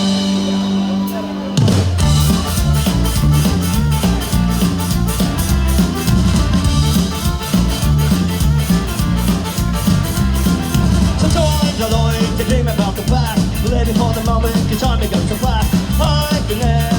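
Live folk-punk band playing an instrumental intro. A sustained fiddle note gives way, about a second and a half in, to the full band with drum kit and bass coming in together on a fast, steady beat.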